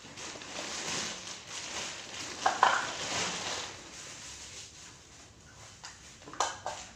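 Packaging being handled and unwrapped: rustling and crinkling, with a sharp clatter about two and a half seconds in and another near the end as items are set down.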